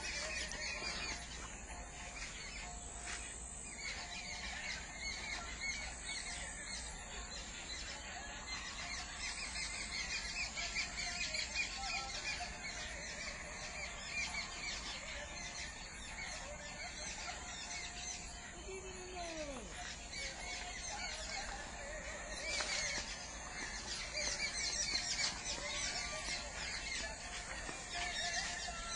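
Many birds chirping at once, their short high calls overlapping continuously, with one lower call sliding down in pitch a little past the middle.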